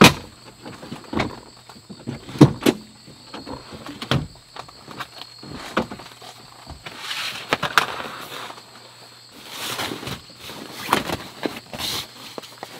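Clunks and knocks of car seats being folded flat, the loudest about two and a half seconds in. Later come rustling swishes as a sleeping pad is laid out and smoothed over the folded seats.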